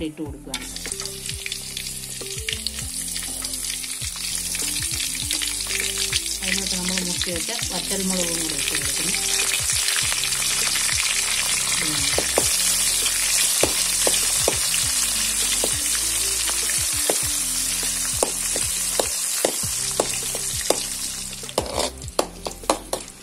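Dried red chillies, cinnamon and cloves sizzling in hot oil in a steel wok. The sizzle sets in about half a second in and builds, and from about halfway the steel spatula clicks and scrapes against the pan as the spices are stirred, sharper near the end.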